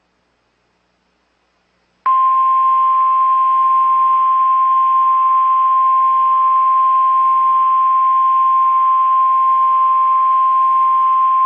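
NOAA Weather Radio warning alarm tone: a single steady 1050 Hz beep over radio hiss. It starts abruptly about two seconds in and holds, signalling that an emergency warning broadcast follows.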